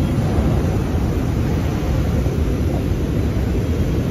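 Steady low rumbling noise of a factory workshop, with no distinct strokes or tones.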